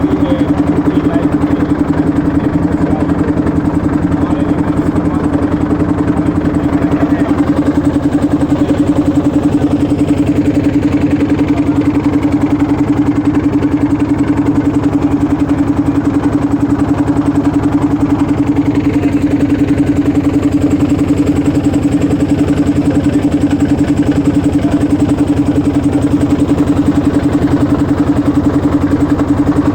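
Boat engine running steadily at a constant pitch, with a strong even hum and rapid regular pulsing.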